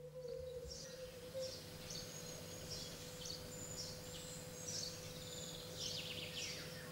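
Birds chirping and calling in quick high-pitched strings, over a faint steady hum.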